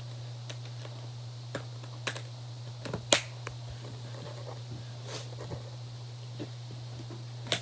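Irregular clicks and knocks from a black TKL hard-shell guitar case and its latches being handled, the loudest about three seconds in, over a steady low hum.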